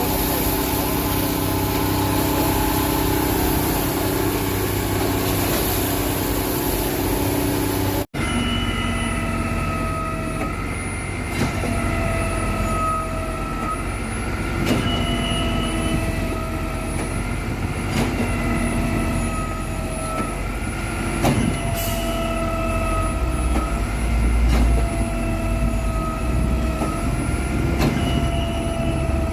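Standard concrete pump running under load. After a short break about eight seconds in, a knock comes about every two seconds as the pump changes stroke, each followed by a slightly falling whine.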